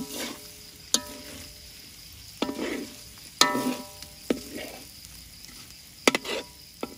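A metal spatula scraping and clanging against a metal wok as shredded food is tossed and stir-fried, with the food sizzling in the hot oil. The strikes come every second or two, and some leave the wok ringing briefly.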